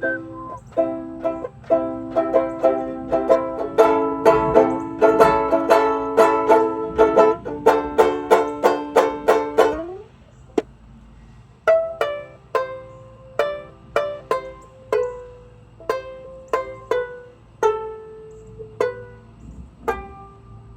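Banjo-ukulele played on its own: fast rhythmic strummed chords that stop about ten seconds in, followed by slower single plucked notes, each ringing out, winding the tune down.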